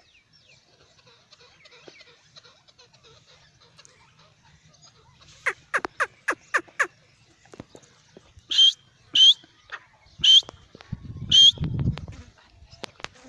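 Francolin (teetar) calling: a quick run of about six short falling notes, then four loud, harsh calls about a second apart. A low rumble comes in near the end.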